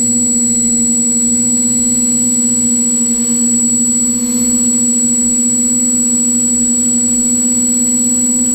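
Multirotor drone's electric motors and propellers buzzing at a steady, unchanging pitch.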